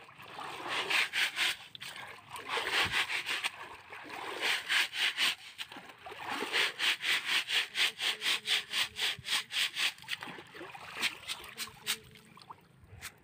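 Rapid rhythmic scraping strokes, about five or six a second, coming in short bursts with brief pauses and a longer run in the second half.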